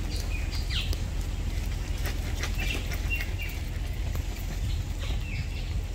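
Birds calling: short, scattered chirps and quick gliding calls, over a steady low rumble.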